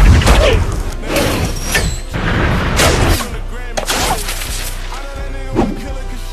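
Action-film soundtrack mix: a loud hit at the start and several more crashing hits over the first few seconds, set over music that carries on steadily after that.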